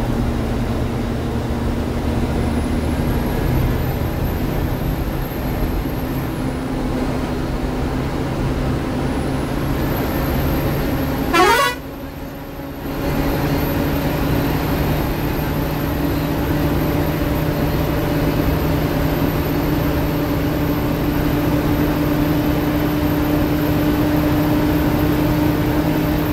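Ashok Leyland sleeper bus engine and road noise heard from the driver's cabin, running steadily at highway speed while overtaking. About eleven seconds in, a quick rising sweep is followed by a brief dip in the sound, and then the engine note slowly climbs.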